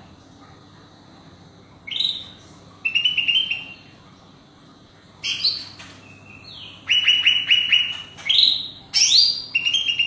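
Male green leafbird (burung hijau) singing in loud bursts that start about two seconds in. The song mixes rising whistled sweeps with quick runs of repeated chattering notes, separated by short pauses, and the bursts come more often near the end.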